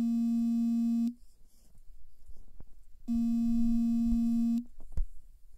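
Two long, steady tones of one fixed pitch, each about a second and a half long and about two seconds apart. They sound like a horn or buzzer.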